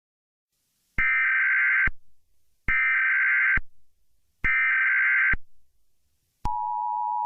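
Emergency Alert System SAME header data bursts: three identical buzzy, warbling bursts of just under a second each, evenly spaced. About six seconds in, they are followed by the start of the steady two-tone EAS attention signal.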